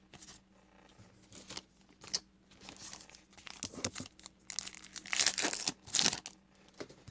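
Plastic trading-card pack wrapper being torn open and crinkled in the hands, in scattered crackles that get louder about five seconds in.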